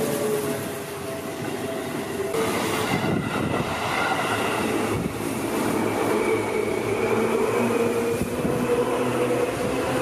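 Yellow Seibu 2000-series electric commuter train running past close by, its wheels rumbling along the rails, with steady tones running through the noise. The sound grows fuller about two and a half seconds in as the near train arrives.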